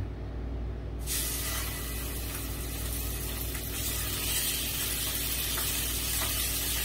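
Thick-cut boneless pork chops sizzling in a hot cast-iron skillet with a little olive oil. The sizzle starts suddenly about a second in, as the meat goes into the pan, and then holds steady.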